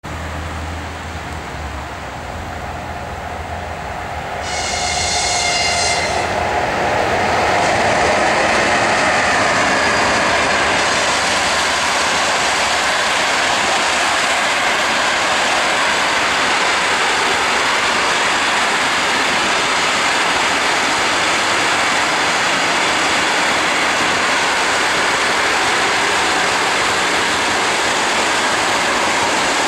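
An EP1M electric locomotive hauling a passenger train comes up and passes close by, growing louder from about four to eight seconds in, with a brief high-pitched tone about five seconds in. After that comes the steady rolling noise of the passenger coaches going past.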